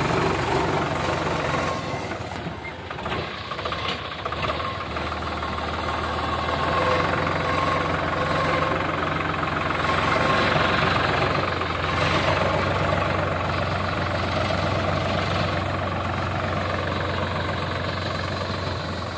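Sonalika tractor's diesel engine running under load as it pulls a trailer heaped with soil up a dirt ramp. It is a steady engine note that dips briefly about three seconds in.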